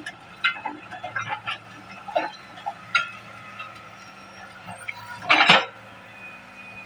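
Excavator at work: irregular metallic clinks and knocks over a steady engine hum, with one louder crunch about five and a half seconds in.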